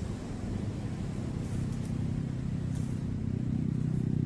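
Electric motor and gear drivetrain of a 1/10-scale RC crawler truck whining steadily as it drives, growing louder toward the end as it gets closer.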